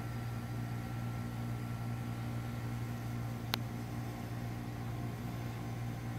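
Steady low electrical hum with an even hiss, and a single sharp click about three and a half seconds in.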